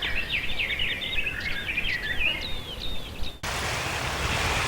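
Birds chirping in quick, repeated whistled notes that swoop up and down. About three and a half seconds in they cut off abruptly, replaced by a steady rushing hiss.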